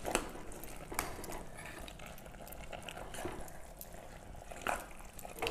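Steel spoon stirring raw mutton, onions and a watery spice paste in a pressure cooker: a soft, wet squelching with a few light clinks of the spoon against the pot.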